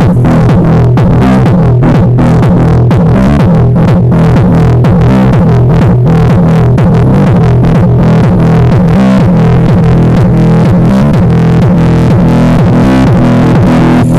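Electronic dance music with a heavy bass line and a steady beat of about two strokes a second, played very loud through a Volkswagen Saveiro pickup's car sound system.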